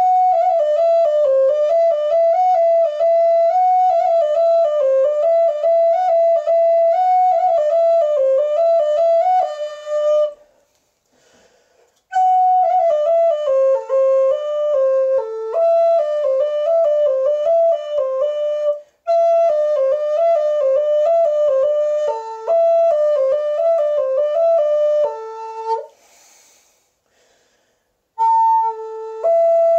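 Background music: a solo melody on a flute-like wind instrument, moving note by note in phrases, with a few short pauses between them.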